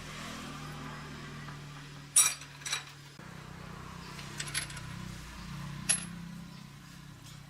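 Small metal parts clinking against metal: a sharp ringing clink about two seconds in, another half a second later, a couple of lighter taps a little past the middle, and a last ringing clink near the end, over a steady low hum.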